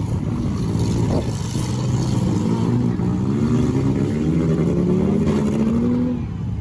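Demolition derby car engines running hard, with one engine revving so that its pitch rises and falls repeatedly through the middle of the stretch.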